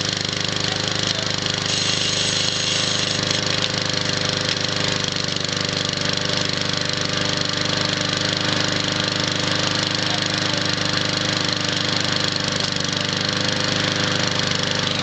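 Push mower's small single-cylinder engine running at a steady speed, its governor broken.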